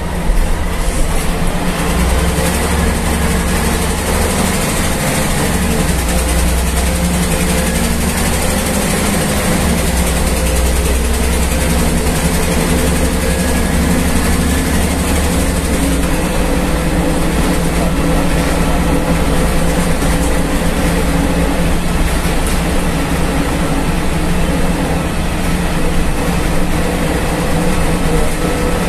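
Ikarbus IK-103 city bus heard from inside the passenger cabin while driving: a steady low engine drone over a wash of running noise. The engine note shifts a few times as the bus changes speed.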